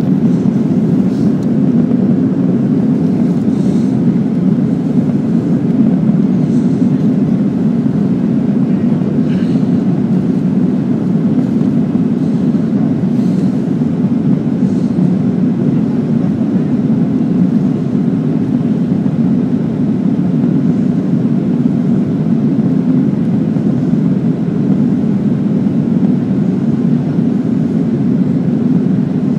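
Steady cabin noise of a Boeing jet airliner in flight, heard from a window seat: a low, even rumble of engines and airflow.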